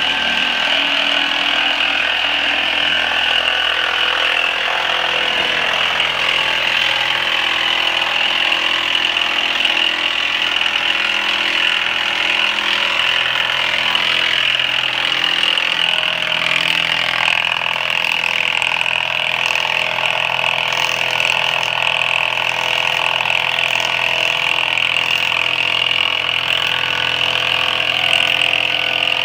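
A motor running steadily and loudly without a break, with a strong high whine.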